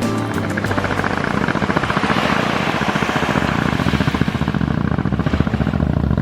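An engine running steadily with a fast, even chop, under a rushing noise that is loudest in the middle.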